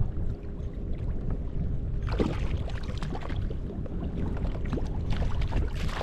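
Wind rumbling on the microphone while water slaps and splashes against a kayak hull, with a louder splash about two seconds in and another near the end.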